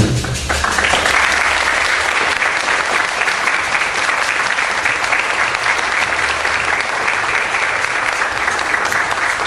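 Theatre audience applauding steadily, the clapping swelling in about half a second in as the percussion music stops.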